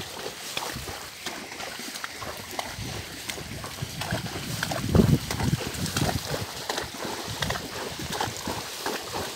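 A horse's hooves splashing through shallow floodwater and mud at a walk, in an uneven rhythm, with one heavier splash about halfway through.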